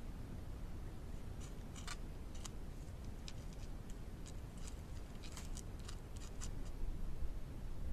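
Beaver gnawing wood with its teeth: irregular sharp crunching clicks over a low steady rumble.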